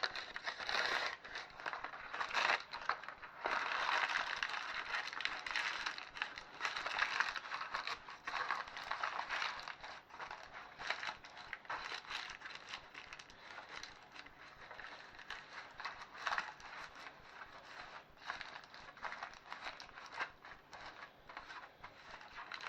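Creased baking paper crinkling and rustling as it is pressed into the corners of a square baking tin, in irregular bursts that are louder in the first half and fainter later.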